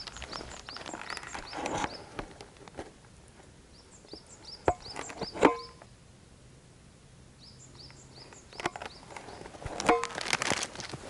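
Footsteps of a walker on a road or path, uneven and pausing for a spell midway, with a few sharp ringing knocks and runs of short, high repeated chirps.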